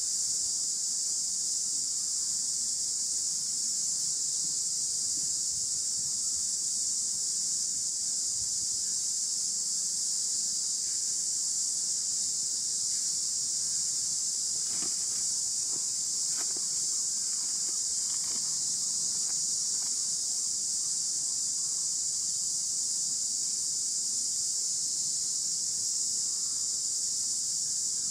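A steady, unbroken high-pitched drone of insects, with a few faint soft rustles or ticks about halfway through.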